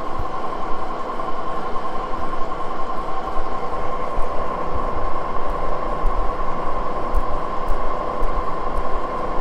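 Moore jig borer running, a steady machine whine over a low rumble that holds level throughout.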